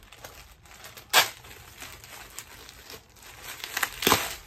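Plastic bubble wrap crinkling and rustling as it is pulled off a candle, with a sharp rip about a second in and another loud burst of crackling near the end.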